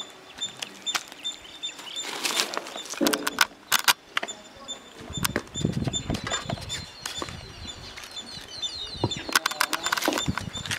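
Fish pieces being mixed with cornflour and masala in a metal vessel: irregular clinks and knocks with rough handling noise around the middle. Birds chirp in the background.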